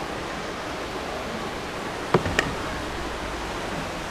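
Steady rushing of water inside a river lock chamber, with two sharp knocks about two seconds in.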